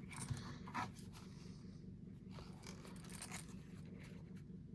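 Faint handling of a molded leather sheath and multi-tool: a few light clicks and rubs over a low steady hum.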